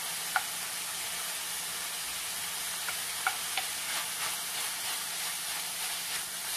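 Diced onion and red bell pepper sizzling with browned ground meat in a hot stainless steel pan, a steady hiss. A few sharp clicks come from the wooden spoon early on and around the middle, and from about four seconds in it scrapes the pan in regular strokes as it stirs.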